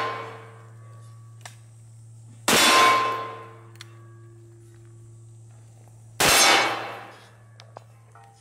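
Two shots from a long-barrelled .500 S&W Magnum revolver, about three and a half seconds apart, each followed by the ringing of a struck steel target.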